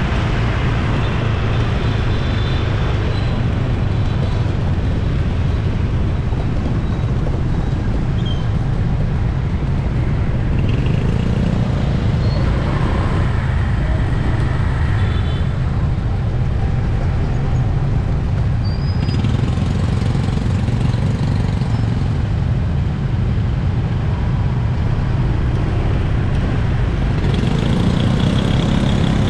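City street traffic: a steady, dense rumble of passing vehicle engines and tyres, with a few faint short high tones above it.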